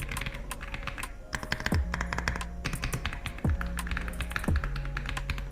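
Fast typing on a Zifriend RX75 Pro mechanical keyboard, a quick run of key clacks, over background music with steady bass notes and a few deep bass hits.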